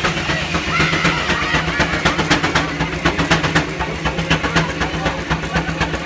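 Steam traction engine running under steam and driving a belt-powered sawmill: a steady mechanical hum with quick, regular beats.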